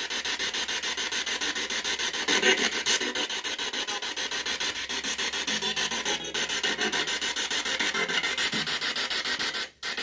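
Spirit box radio scanning through stations through a small external speaker: a steady hiss of static chopped into rapid, even pulses. It cuts out for an instant near the end.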